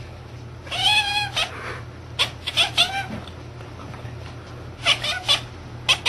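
Domestic cat meowing: a long meow about a second in, followed by shorter meows.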